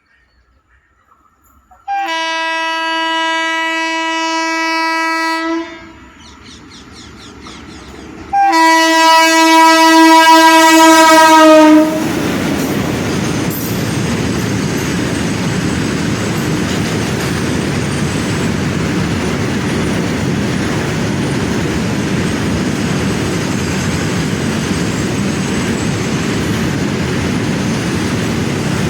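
WAG-7 electric locomotive's horn sounding two long blasts, the second louder and dropping in pitch at its end as the engine passes. Then a steady rumble of freight wagons rolling by on the rails.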